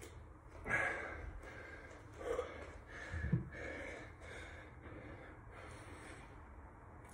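Faint hard breathing of a man resting between HIIT exercises, a few short gasping breaths, with a dull thump about three seconds in.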